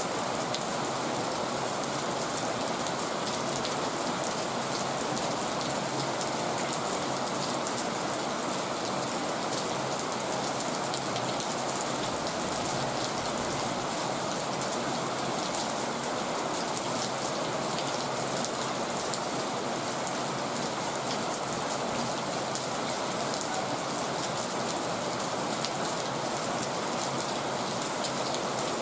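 Heavy rain falling steadily on surfaces, a dense unbroken hiss of many drops.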